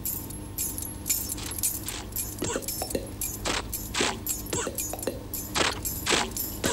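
Cartoon sound effect of a car being started: keys jangling on the ring hanging from the ignition, with an irregular run of clinks and clanks as the engine sputters into life.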